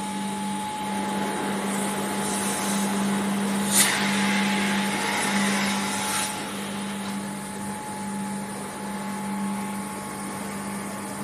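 Steady hum of V-process moulding-line machinery, with a rushing hiss that swells for a few seconds and peaks in a sharp burst about four seconds in.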